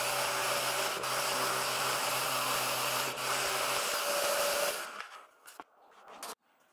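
Mirka Deros random orbital sander running steadily while sanding a plywood piece, then switched off and winding down about five seconds in, followed by a few light knocks.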